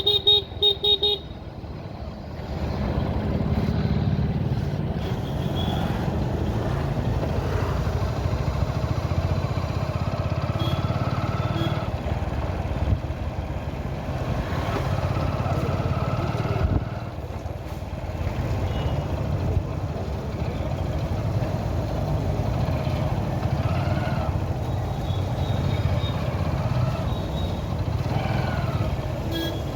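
Vehicle engine and road noise running steadily on a road ride, with a horn honking in several quick beeps about a second in.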